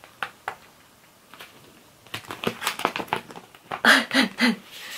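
Paper rustles and light taps of a hardback book being handled as its paper dust jacket is slid off. About four seconds in there is a short breathy laugh, followed by a sliding paper rub near the end.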